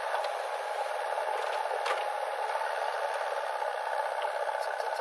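JCB 3DX backhoe loader's diesel engine running steadily while it works, loading soil, with a brief clank about two seconds in.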